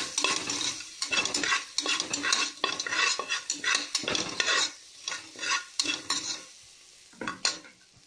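Onions sizzling in ghee in a pan while a spoon stirs and scrapes them, in quick repeated strokes. The stirring stops about six seconds in, with a couple of last scrapes near the end.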